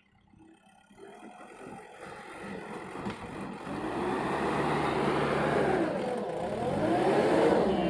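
Backhoe loader's diesel engine running, coming in from near silence over the first few seconds and then holding steady, with its pitch dipping and rising again as it revs near the end.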